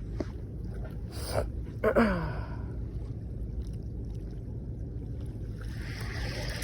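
Steady low rumble of wind on the microphone. About two seconds in, a person gives a short gasp or groan that falls in pitch.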